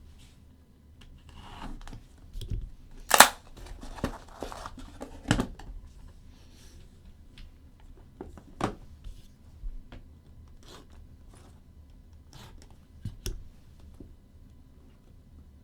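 A sealed box of trading cards being unwrapped and opened by hand: plastic wrap tearing and crinkling, with scattered clicks and taps of cardboard and a sharp snap about three seconds in.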